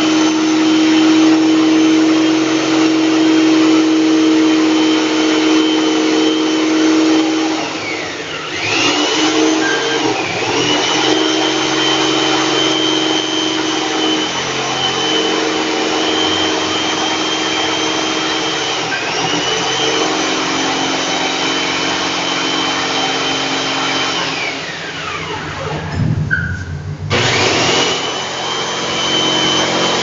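Electric jigsaw cutting through a wooden panel, its motor whining steadily. It slows and speeds back up twice, stops briefly about 26 seconds in and starts again.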